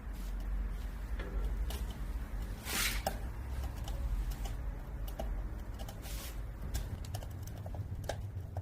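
Wood fire crackling in a wood stove's firebox as the kindling catches: many sharp, irregular pops and snaps over a low steady rumble. Two brief rushes of noise come about three and six seconds in.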